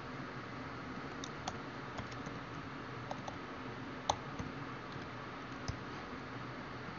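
Irregular keystrokes on a computer keyboard: a dozen or so sharp, scattered clicks over a steady faint hiss, one of them louder about four seconds in.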